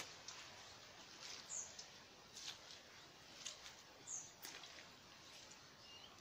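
Faint rustling swishes of shiny waterproof rain trousers and jacket, with soft footsteps on wet mud, irregular and about once a second, over a low outdoor hiss.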